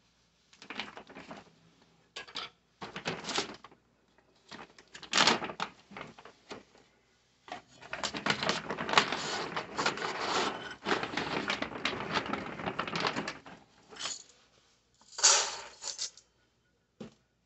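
Irregular rustling and clicking close to the microphone, in short bursts, with a denser stretch of crackling from about eight to thirteen seconds in.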